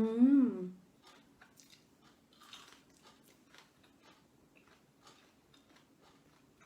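A woman's short wordless vocal sound at the start, wavering in pitch, then faint clicks and small mouth noises of eating and chewing.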